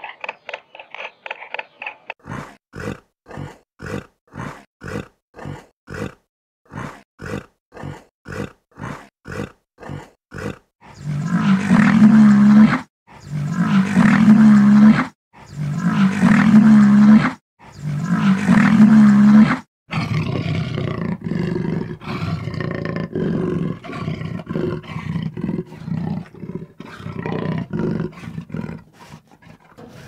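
A large animal calling: short rhythmic grunts, about two a second, for roughly nine seconds, then four long, loud roars of nearly two seconds each, then a steadier, lower call that stops near the end.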